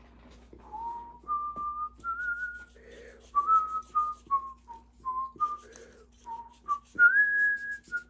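A man whistling a tune in short notes that step up and down, ending on a longer, higher held note near the end.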